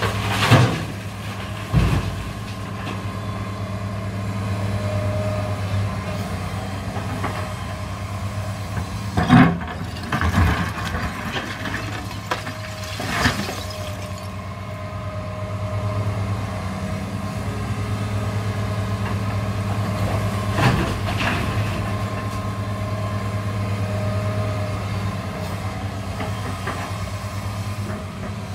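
New Holland E245 crawler excavator's diesel engine running steadily, broken by loud crashes of concrete and brick rubble as the bucket dumps debris into a dump truck's steel bed and digs into the rubble pile. One crash comes right at the start, a few more come about a third of the way through, and another about two-thirds through.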